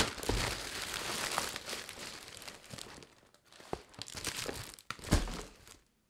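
Plastic courier bag crinkling and rustling as it is opened and its bubble-wrapped contents pulled out, loudest over the first two seconds, with a thump about five seconds in.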